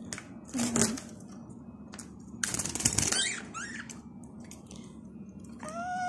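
Pet budgerigars at the seed cup: quick clicking and rattling of beaks on seed and cage, with a dense burst of clicks a little before halfway. A few short chirps follow, and there is a single arched call near the end.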